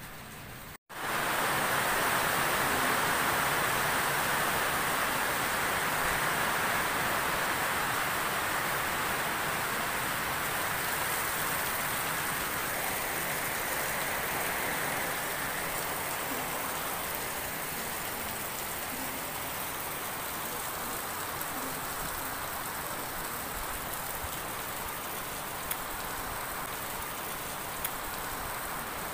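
Steady rain, an even hiss that starts abruptly about a second in and eases slightly over the rest, with a couple of faint ticks near the end.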